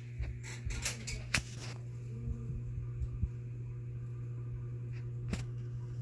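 Hunter Ridgefield II 44-inch ceiling fan running on high speed with a steady low motor hum. Several light clicks sound in the first two seconds and one more about five seconds in.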